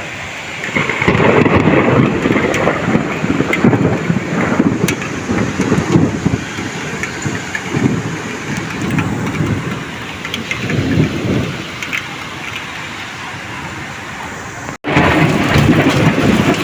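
Heavy rain falling, with low rumbles of thunder swelling and fading several times. The sound cuts out for an instant near the end, then comes back louder.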